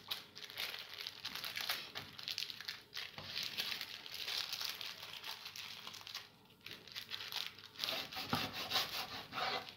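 Sheet of baking parchment paper being folded and creased by hand, crinkling and rustling. Near the end a chef's knife cuts through the folded paper on a wooden cutting board, giving a few sharper strokes.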